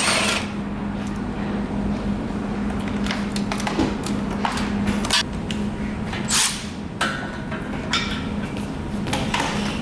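Irregular knocks and clatter of hand tools on car body parts as a crash-damaged front end is dismantled, over a steady low hum.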